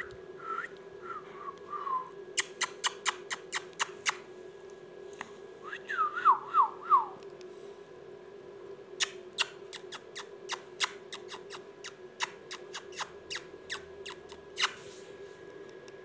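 Two runs of short, falling whistles, about four in each run, one at the start and one about six seconds in. Between and after them come quick series of sharp clicks, over a steady low hum.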